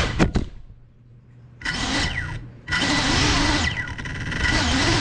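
Small FPV quadcopter's motors whining. A couple of sharp knocks come just after the start, then the motors drop out for about a second. At about a second and a half they spin back up and keep running with a wavering whine while the drone sits on the floor.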